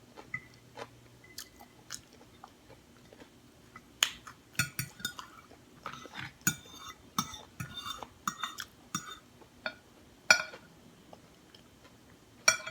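Close-up chewing and biting of crunchy taco shell pieces, with short crackling crunches and mouth clicks. Sparse at first, then a busy run of crunching from about a third of the way in, and one sharp crunch near the end.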